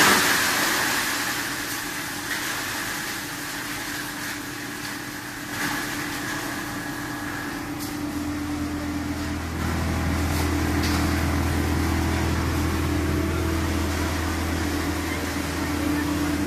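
Plastic pallet crusher running empty: a steady machine hum, with a deeper, stronger hum setting in about eight seconds in.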